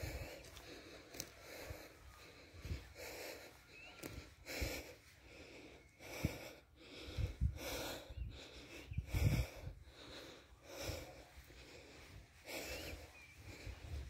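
Footsteps of a person walking at an even pace, about one step every 0.7 seconds, with the walker's breathing close to the microphone.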